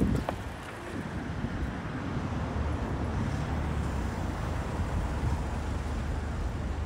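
Street ambience: a steady low rumble of traffic with wind buffeting the microphone, and a couple of sharp clicks right at the start.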